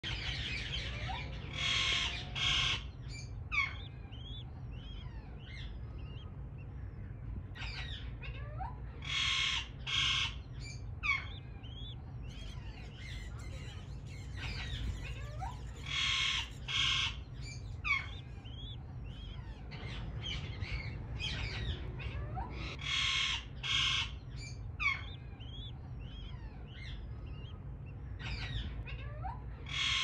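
Birdsong: many small birds chirp in short rising and falling notes, and a pair of harsh squawks comes back about every seven seconds, so the pattern sounds looped. A steady low hum runs underneath.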